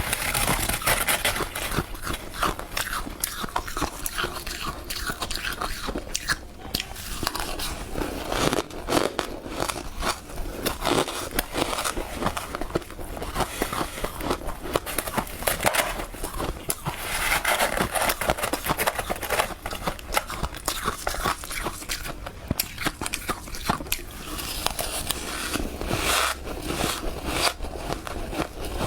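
Close-miked crunching and chewing of powdery freezer frost, a dense run of crisp crackles and crunches with each bite.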